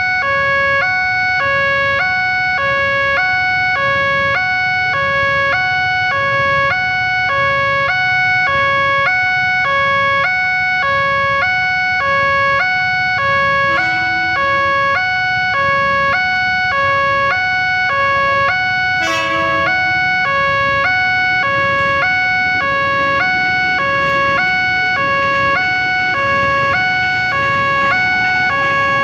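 Railway level-crossing warning siren sounding a steady, evenly repeating alternation between two electronic tones, over a constant higher tone: the alarm that runs while the barriers are down for an approaching train.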